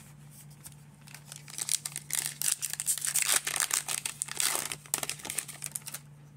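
A foil trading-card pack wrapper being torn open and crinkled by hand: dense crackling starts about a second and a half in and stops shortly before the end.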